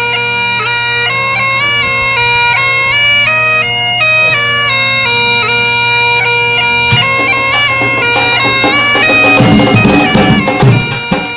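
Background music: a piping melody over a steady low drone, bagpipe-like, with a beat of drums coming in about nine seconds in.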